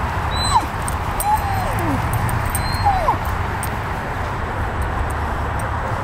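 Basset Griffon Vendéen hound yipping and whining in play: three short cries, each falling in pitch, in the first half, over a steady low background rumble.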